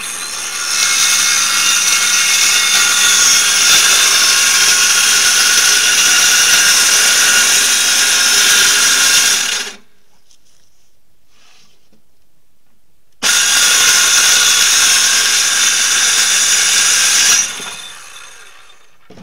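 Battery-powered saw cutting through plywood: a loud, steady motor whine for about ten seconds that stops abruptly, then after a pause of a few seconds a second, shorter cut of about four seconds that trails off as the saw winds down.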